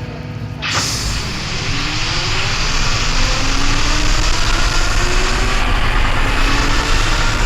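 Jet aircraft engine noise: a loud, steady rushing sound that cuts in suddenly about half a second in, with faint gliding tones underneath.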